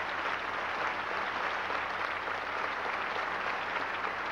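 Large banquet audience applauding, a steady dense patter of many hands clapping.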